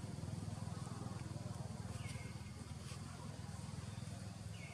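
Outdoor ambience: a steady low rumble, with a short high call that rises and then levels off, repeated three times about two and a half seconds apart.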